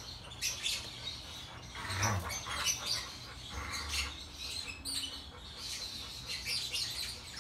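Birds chirping, with short high calls scattered throughout, and a brief louder sound about two seconds in.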